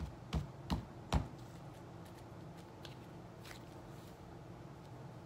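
Handling noise from hands working with small objects close by: four short, dull thumps in the first second or so, the last the loudest, then a few faint clicks.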